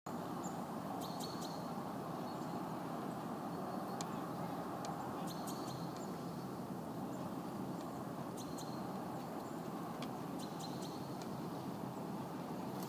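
Steady outdoor noise, with short high bird chirps breaking in every few seconds.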